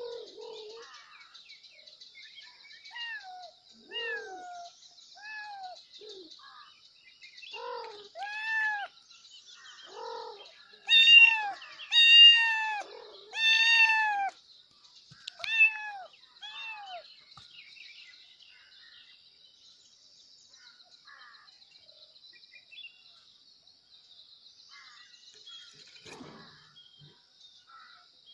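Kittens meowing for their mother, a run of about fifteen high calls that rise and fall in pitch. The loudest are three long meows about eleven to fourteen seconds in; after that there are only a few faint calls.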